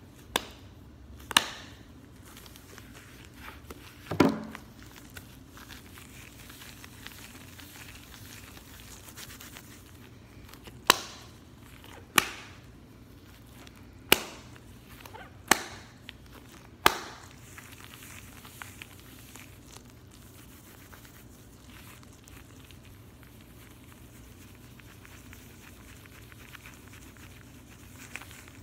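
Latex-gloved hands rubbing and stretching the gloves, a soft rustle broken by sharp snaps and slaps of the latex: a few in the first seconds, then a run of five spaced about a second apart a little before halfway, after which only the faint rustle goes on.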